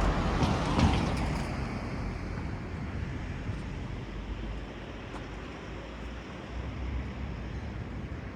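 Outdoor traffic noise: a passing vehicle fades away over the first couple of seconds, leaving a steady low rumble.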